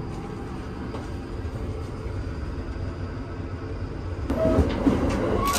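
Running noise of a Japanese commuter train heard from inside the car: a steady low rumble that gets louder about four seconds in, with a few short high-pitched tones and clicks near the end.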